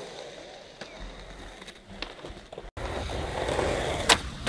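Skateboard wheels rolling on concrete, with a few light clicks. After a cut about two-thirds of the way in, the rolling is louder, and near the end the board gives a sharp clack as it is popped on the concrete.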